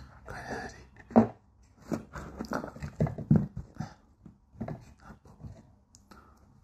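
Close-miked human mouth sounds: an irregular run of short smacks and clicks, loudest about a second in, thinning out toward the end.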